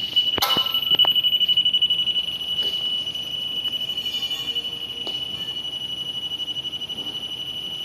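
Electronic warning buzzer sounding one steady high-pitched tone with a fast pulsing flutter while the Tokyo Seimitsu MHF300L's hinge is run. A sharp metallic knock about half a second in, with a few fainter clicks later.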